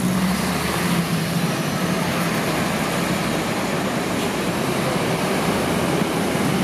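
Roadside traffic: diesel coach and truck engines running as they pull away and pass close by, a steady low engine hum under a wash of road noise.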